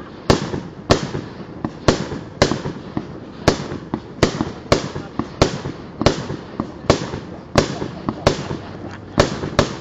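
Fireworks display: aerial shells bursting one after another, sharp bangs about two a second, each trailing off briefly.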